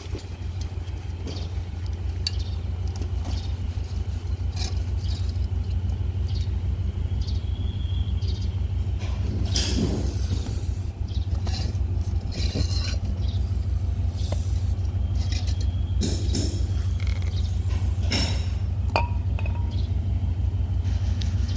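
A steady low, finely pulsing rumble like a running machine, with scattered light metal clinks and a few short scraping noises as a welded steel piece is handled and wiped clean.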